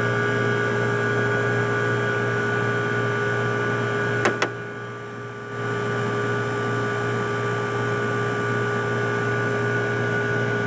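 1981 Emerson Quiet Kool window air conditioner running steadily, its compressor and fans giving a constant hum with a few steady tones; the owner judges it a healthy-sounding unit with a full refrigerant charge. Two sharp clicks about four seconds in, then the sound drops briefly for about a second before the steady hum returns.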